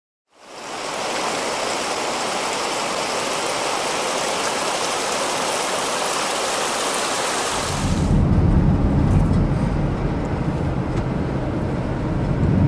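A steady rushing hiss, which changes abruptly about eight seconds in to heavy, low, gusty rumbling of wind buffeting the camera microphone.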